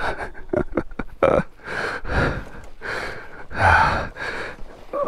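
A rider breathing hard and gasping after exertion, with several heavy breaths. Light clicks and knocks come in the first second or so.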